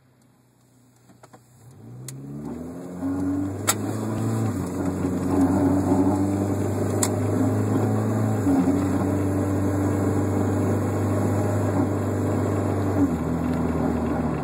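A 1996 Mk3 Volkswagen Jetta's 2.0 four-cylinder running and the car under way, a steady low drone that builds over the first few seconds and then shifts pitch in steps a few times, with a few sharp clicks. The owner hears a rubbing noise in it, seeming to come from near the centre of the car, and cannot tell its cause.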